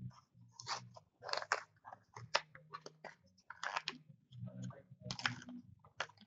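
Black Diamond hockey card packs being torn open and handled: a run of irregular crinkly wrapper rustles and card shuffling.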